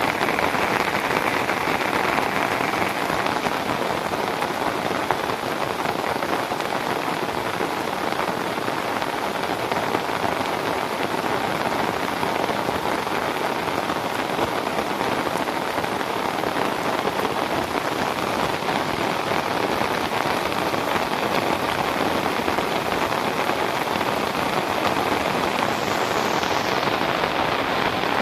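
Steady heavy rain falling, an even hiss of drops on surfaces.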